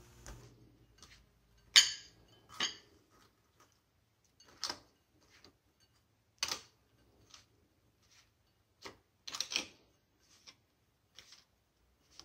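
A hand tossing sand fleas in a dry cornmeal-and-flour coating in a small ceramic bowl: scattered light clicks and taps of the small crab shells and fingers against the bowl, a dozen or so spread out with short pauses.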